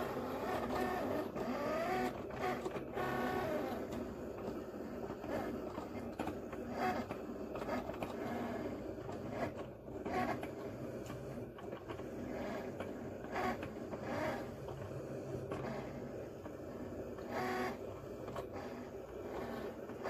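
Cricut cutting machine running a cut on holographic vinyl: its motors whir as the blade carriage moves back and forth and the mat is fed in and out, with a whine that rises and falls as the head speeds up and slows.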